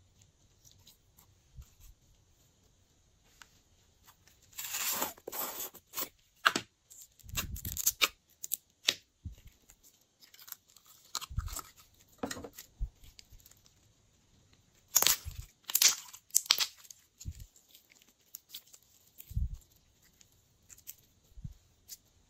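Glossy slime worked by hand, stretched, squeezed and pulled apart, making sticky tearing and squishing sounds in irregular bursts with quiet pauses between. The loudest bursts come about five and fifteen seconds in.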